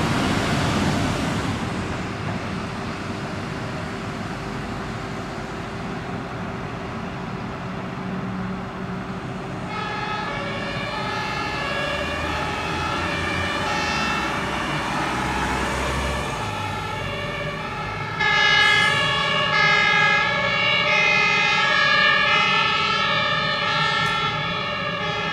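Fire trucks' diesel engines pulling away. About ten seconds in, their two-tone German sirens start up, sounding a repeating alternating two-note call, and they grow louder about eighteen seconds in.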